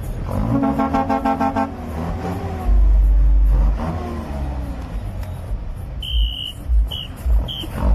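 A vehicle horn sounds one steady note for about a second near the start, followed by very loud deep bass thumps. Short high beeps repeat near the end.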